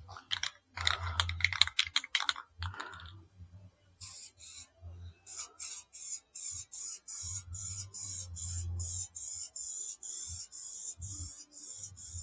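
Aerosol spray paint can in use: a scatter of clicks in the first few seconds, then from about four seconds in a steady run of short hissing pulses, about three a second.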